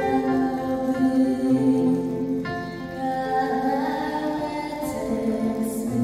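A woman singing a Polish Christmas carol (kolęda) into a microphone over instrumental accompaniment, with long held notes and a change of chord about two and a half seconds in.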